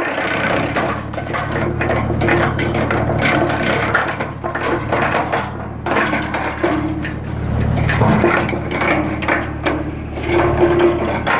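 Geo Tech Pro TCP 100 wood chipper, mounted on a Massey Ferguson 140 tractor, chipping branches: dense, irregular cracking and crunching of wood over the steady drone of the tractor engine.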